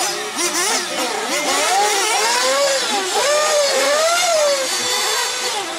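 Nitro engine of a Losi 8ight 1/8-scale RC buggy revving up and down as it is driven around a dirt track, its pitch swooping up and falling back again and again with the throttle, settling steadier near the end.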